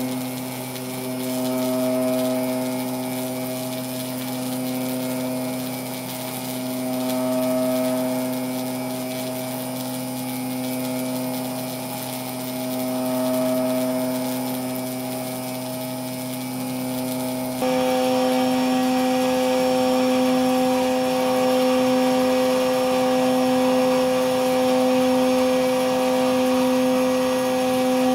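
Electrically driven tuning forks, kept vibrating by electromagnet coils with make-and-break contacts, giving a steady buzzing hum near 256 Hz that swells and fades every five or six seconds as the two nearly matched forks drift in and out of phase. About two-thirds of the way through, the sound changes at once to a louder, harsher buzz with a higher tone added: a 512 Hz fork now sounds against a 256 Hz fork.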